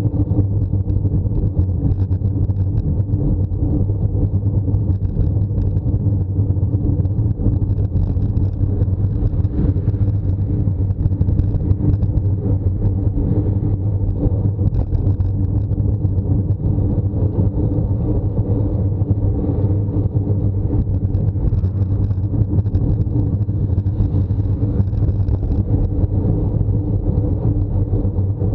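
Steady wind and road noise from a road bike rolling uphill, picked up by a bike-mounted camera's microphone as a continuous low rumble with a steady low hum.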